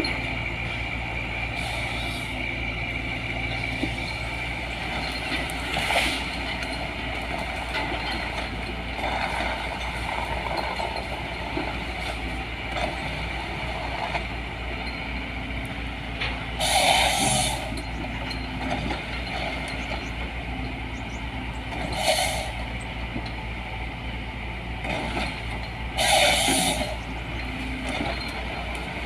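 LiuGong 915E excavator's diesel engine running steadily under a harvester head, with three short, loud hissing bursts about halfway through and near the end.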